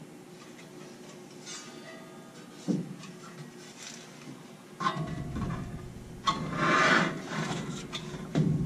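Handling noises as a sheet-metal zone damper and its motor are worked back up into the hole in the duct: a soft thud about a third of the way in, then rubbing and scraping of metal against metal, and a knock near the end.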